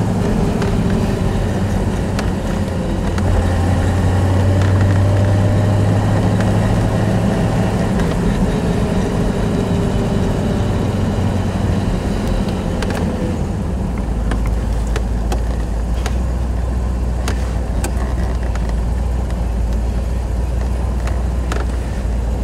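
1963 Chevrolet Corvette's 327 V8, fitted with a light cam, running as the car is driven slowly. The revs rise and fall through the first half, then settle to a lower, steadier note about halfway through.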